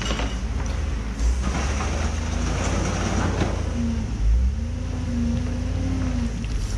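Mini excavator's diesel engine running under working load with its hydraulics. There is scraping noise early on, and in the second half a humming tone that dips and rises in pitch as the hydraulics work.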